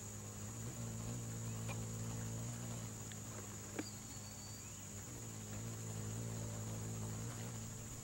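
Steady high-pitched chorus of insects, with a low steady hum beneath it and a single faint click a little before the middle.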